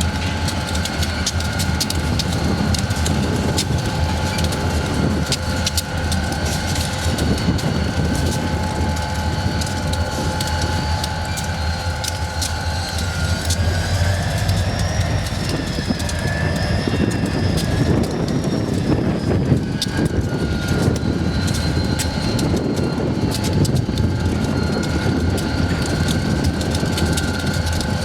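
Freight train rolling past: a steady rumble of locomotives and cars with many clicks from the wheels, and steady high whining tones that rise and fall in pitch about halfway through.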